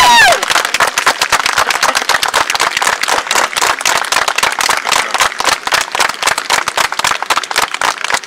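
Audience applauding, many hands clapping unevenly; a held brass note cuts off just as it begins.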